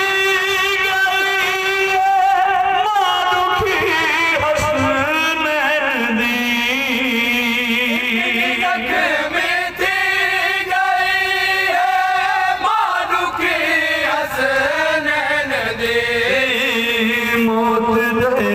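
A man chanting a Shia mourning lament into a handheld microphone, amplified through horn loudspeakers, in long, wavering sung lines. Other men's voices join in.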